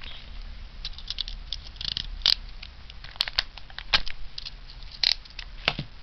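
Foil trading-card booster pack wrapper crinkling and crackling as it is handled and opened, in scattered sharp crackles.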